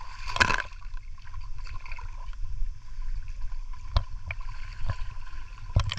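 Shallow water sloshing and lapping against a half-submerged action camera, with a splash about half a second in and a few short knocks of water against the housing later on.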